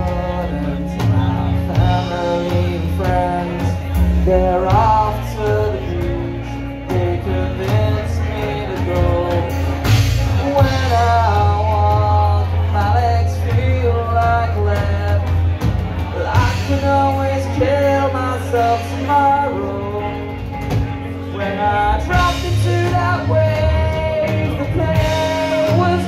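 Live rock band playing loudly: electric guitars, electric bass and drums, with a man singing over them.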